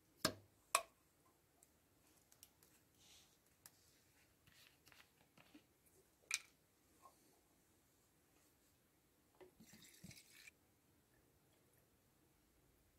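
Faint handling noises of plastic caps and bottles while Raptor liner hardener is measured out and added: a few small clicks, the loudest near the start, and a short soft rustle about ten seconds in.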